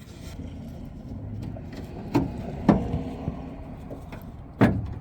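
Hands and a tool working the door-handle rod's retaining clip inside a 1993 Chevy S10's door: three sharp clicks and knocks, about two, two and a half, and four and a half seconds in.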